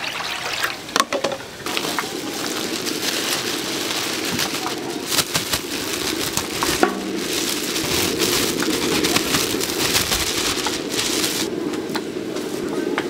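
Battered fritters (twigim) deep-frying in hot oil: a steady, dense sizzle full of small crackles.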